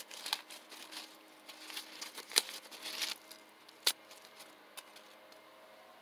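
Dry corn husks crackling and tearing as they are peeled by hand off a dried ear of Glass Gem corn, with a few sharp snaps, the loudest about two and a half seconds in. It goes quiet after about four seconds.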